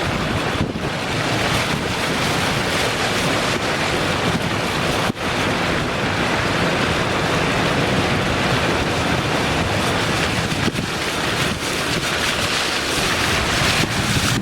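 Loud, steady rush of rainwater, with wind buffeting the microphone.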